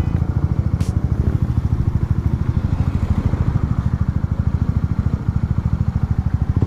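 A Honda CBR150R motorcycle being ridden at a steady pace: its 149 cc single-cylinder engine running, heard together with a dense, rapidly fluttering low noise of wind and road that does not let up.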